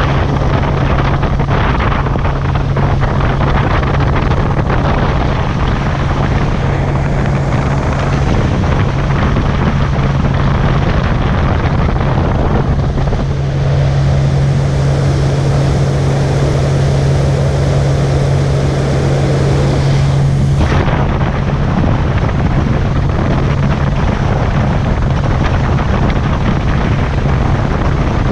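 Outboard motor of a small fiberglass boat running at a steady speed, a constant hum under the noise of wind buffeting the microphone. A brighter hiss rises for several seconds past the middle and cuts off suddenly.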